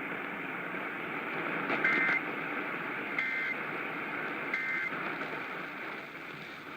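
Emergency Alert System end-of-message (EOM) data: three short bursts of two-tone digital warbling, about 1.3 s apart, marking the end of the alert. They sound over a steady hiss of radio reception static.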